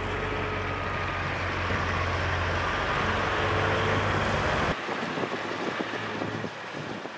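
Freightliner Coronado's Caterpillar diesel engine running steadily, loud and low with a faint whine, while its tipper trailer stands raised to dump sand. About five seconds in it cuts to a quieter, more distant truck engine.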